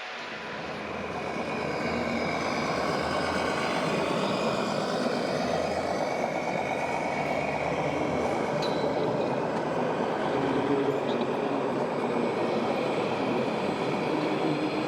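Steady mechanical running of 1/14-scale RC trucks and construction machines, engine-like sound with a faint whine, over the general noise of a busy exhibition hall. It cuts in suddenly and swells over the first two seconds.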